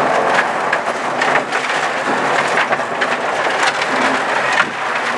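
Gravel and stones hitting the underside and wheel arches of an Audi 80 quattro rally car driving fast on a gravel road, heard inside the cabin as a dense crackling rattle.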